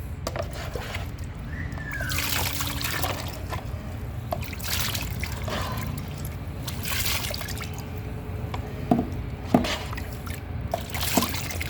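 Liquid spraying and trickling in a series of short hissing bursts, several in a row, with a couple of small hard clicks about nine seconds in. Brake parts are being washed down during a brake service.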